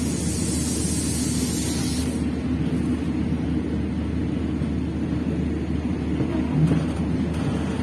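Steady low rumble of a passenger train running along the track, heard from an open carriage window with the rush of passing air. A high hiss fades out about two seconds in, and a brief louder low sound comes near the end.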